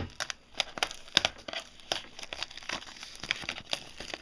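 Plastic wrapping on a sealed box of Upper Deck Trilogy hockey cards being torn open and crumpled by hand: a run of irregular sharp crackles.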